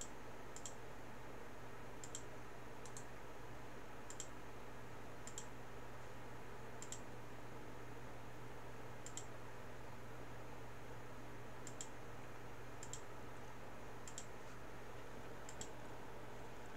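Computer mouse clicking about a dozen times at irregular intervals, each a short sharp click, while wires are placed in a circuit-drawing program. Under the clicks is a faint steady low hum of room noise.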